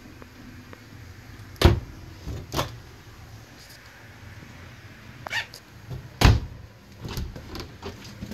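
An RV's wooden cabinet doors being opened and shut by hand: a series of sharp knocks and latch clicks, the loudest about two seconds in and again about six seconds in.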